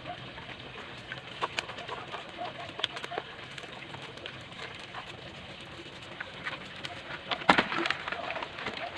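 Doves cooing in the background with short repeated notes, while a mud crab is handled and tied with plastic strips, giving small scattered clicks and rustles. About seven and a half seconds in comes a louder crackling clatter.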